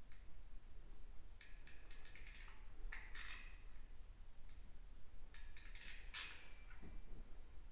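Light clicks and scrapes of hands working with small tools and parts, in a few short clusters over a low hum.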